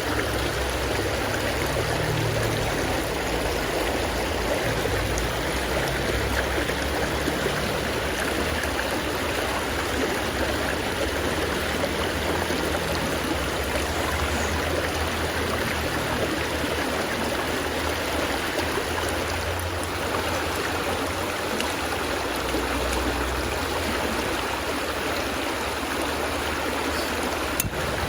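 Steady rushing of a flowing river or stream.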